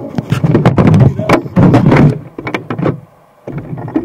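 Close rattling and knocking of a radio-controlled car and the camera mounted on it as it jolts along, dropping away briefly about three seconds in.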